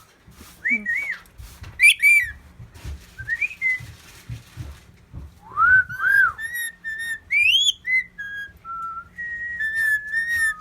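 Pet talking bird whistling: a few scattered whistled notes, then from about halfway a busier run of rising swoops and short held notes.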